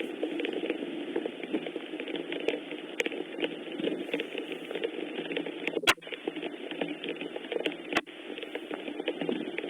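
Steady rain falling, a dense patter of drops. Two sharp clicks stand out, about six and eight seconds in.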